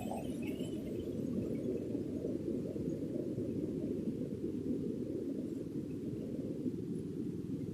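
Waterfall rushing: a steady, low roar of falling water.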